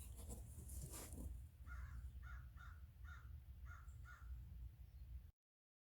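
A bird calling in the background: about six short calls in quick succession over a faint low hum, then the sound cuts out abruptly near the end.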